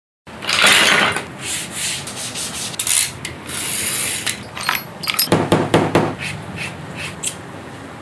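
Hand tools working leather: a series of irregular scraping and rubbing strokes with a few sharp clicks, and a run of louder strokes about five to six seconds in.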